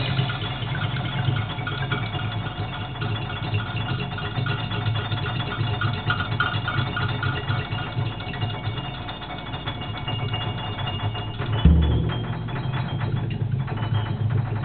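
Free-improvised music on classical guitar and drum kit: guitar notes over a steady low drum rumble, with one loud low drum hit about twelve seconds in.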